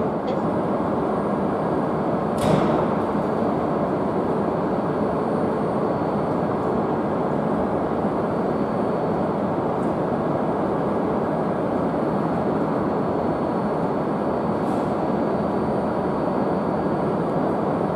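Steady rushing noise from shinkansen trains at the platform, with a short sharp swish about two and a half seconds in.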